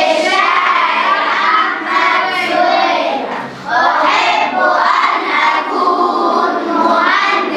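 A class of young schoolchildren chanting a rhymed Arabic poem together in unison, with a short break between lines about three and a half seconds in.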